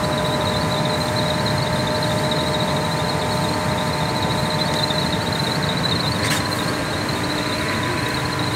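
20 HP floor-standing air conditioner running: a steady rush of air from its fan, with several steady whining tones over it. A short click about six seconds in.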